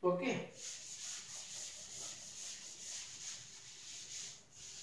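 Yellow duster rubbing chalk off a blackboard in quick back-and-forth strokes, with a brief break near the end.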